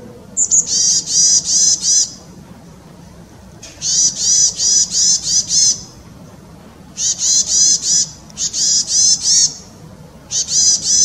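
Chestnut-bellied tit calling: five bursts of quickly repeated high notes, about five notes a second, each burst lasting one to two seconds with short pauses between.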